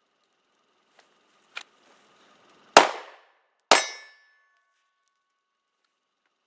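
Two 9mm shots from a Glock 19 Gen 3 pistol, about a second apart, the second followed by a brief metallic ring. A lighter sharp crack comes about a second before the first shot.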